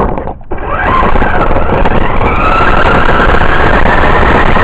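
RC car's motor and drivetrain whining as the car pulls away about half a second in, the pitch rising and then holding steady at speed. Loud and close, heard from the camera riding on the car.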